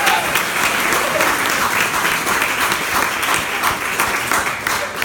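Audience clapping loudly, with a few voices calling out among the claps, dying away right at the end.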